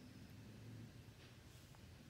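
Near silence: room tone with a low steady hum and a few faint ticks.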